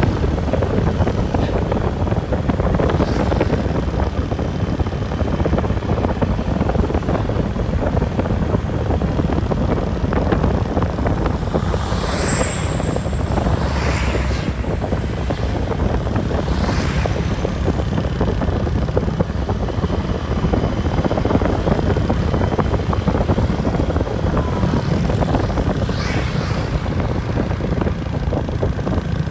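Steady road and engine noise of a moving bus, with a few brief passing swells.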